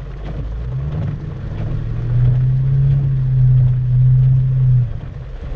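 2004 Mustang GT's 4.6-litre two-valve V8 pulling away from a stop as the clutch is let out under throttle. The engine note rises over the first two seconds, holds steady, and drops off near the end: a clean launch without stalling.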